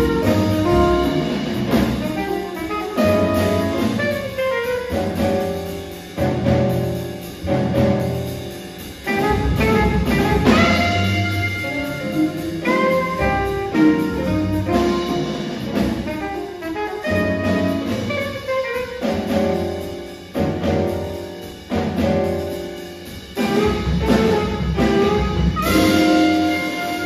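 Live jazz quartet playing: saxophone lines over grand piano, walking upright double bass and drum kit with cymbals.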